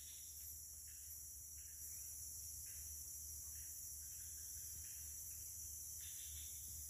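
Steady high-pitched chorus of rainforest insects, unbroken, with a few faint rustles of leaves and movement close by.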